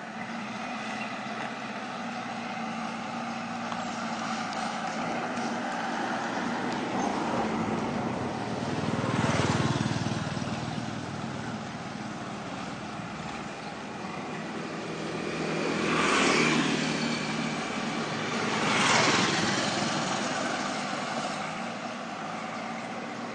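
Road traffic: a steady background of vehicle noise, with three louder vehicles passing, each swelling and fading.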